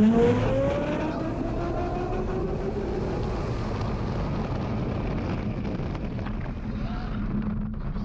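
Launched roller coaster running at speed, recorded on board: a whine that rises in pitch over the first few seconds, over a steady rush of wind and rumble.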